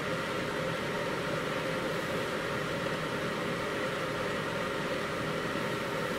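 Steady whirring fan noise with a faint steady hum from a ceramic heater running on high, drawing about 1200 watts through a 12-volt power inverter under load.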